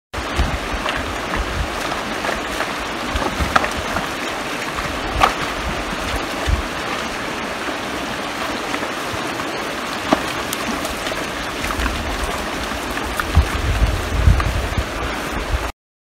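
A steady rushing noise with scattered sharp clicks and low thumps, the thumps heaviest near the end; it starts and cuts off abruptly.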